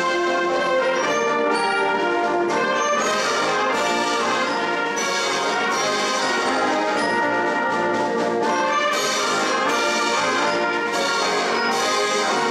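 Concert band of brass, saxophones and woodwinds playing a composition: held full chords led by trombones and trumpets, with several sharp accents.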